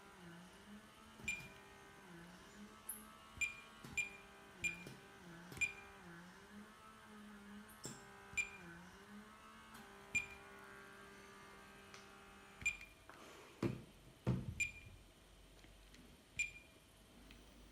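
Short high electronic beeps at irregular intervals from an airsoft fake bomb prop as its menu is stepped through. Under them runs a low wavering hum that stops about three-quarters of the way through, followed by two louder handling knocks.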